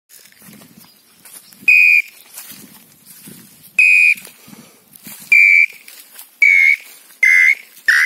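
Tataupa tinamou (pé-roxo) call: about five clear whistled notes, each short, spaced widely at first and then coming closer together and a little lower in pitch, the opening of the accelerating, falling song.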